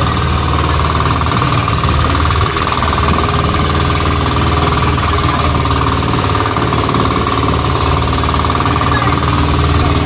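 Engine of a motorized outrigger boat (bangka) running steadily under way, with a fast, even beat.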